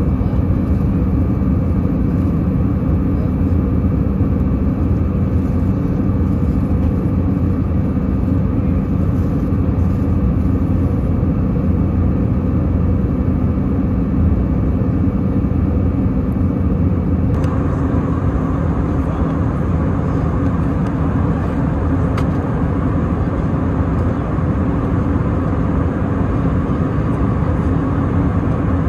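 Cabin noise of an Airbus A319 in cruise, heard from a seat beside its CFM56 turbofan engine: a loud, steady jet drone and airflow rush with a few constant low hum tones.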